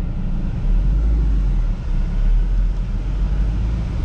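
Steady low rumble of a 2006 Hyundai Elantra being driven, heard from inside the car: the engine, on freshly replaced spark plugs and wires, together with road noise.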